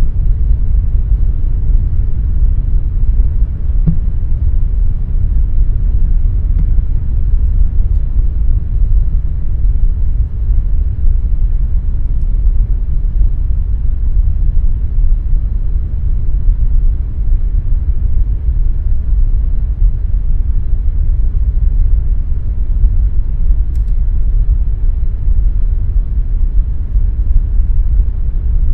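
Air conditioner running with a steady, deep rumbling hum.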